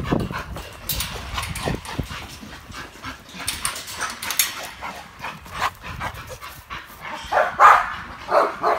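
American bully dogs in wire kennel runs barking and whining in short bursts, with the loudest barks near the end.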